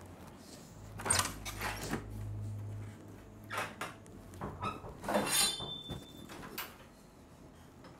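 Scattered knocks and clatters of household items being handled, the loudest about a second in and around the middle, one with a brief ringing tone. A low steady hum underlies the first three seconds.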